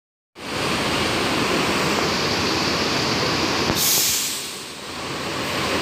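Mercedes-Benz coach running with a steady engine noise; about four seconds in, a sharp, short hiss of released air, typical of the air brakes, after which the noise briefly dips and builds again.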